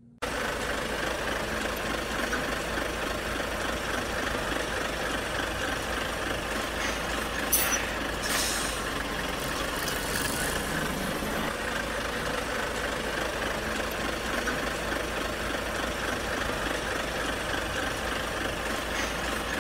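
Heavy truck engine idling steadily, with a few short air hisses about seven and a half to ten and a half seconds in.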